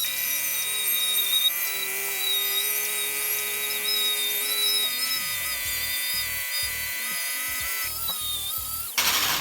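An angle grinder fitted with a wire brush runs with a high, wavering whine while it strips old paint from a metal motorcycle part, under background music. Just before the end comes a brief burst of harsh scraping.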